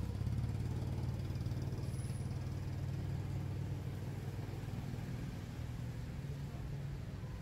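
A motor vehicle engine running steadily at low revs, a low rumble that sets in at the start and eases slightly near the end.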